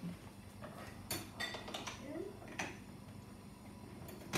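Metal beaters clicking and clinking against an electric hand mixer as they are pushed into its sockets: a few separate sharp clicks, with the mixer's motor not running.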